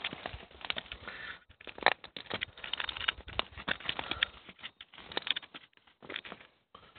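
Close handling noise: irregular light clicks and rustles as a hand turns a stone arrowhead in front of the phone.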